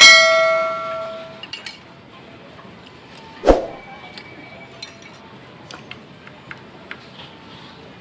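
Kitchen utensils clinking while som tum is made. A metal strike at the start rings out for about a second and a half, a single low thump comes about three and a half seconds in, and light clicks and taps follow.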